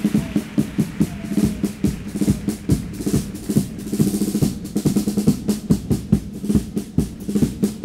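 Chirigota band music: bass drum (bombo) and snare drum (caja) beating a busy, steady rhythm over guitars holding a sustained chord.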